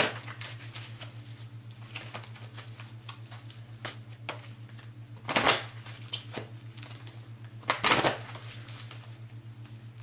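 Tarot cards being shuffled by hand: a run of light card clicks and flicks, with two louder swishes about five and eight seconds in, over a steady low hum.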